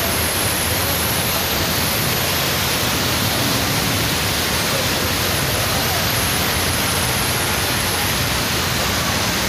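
Heavy rain falling: a steady, even hiss.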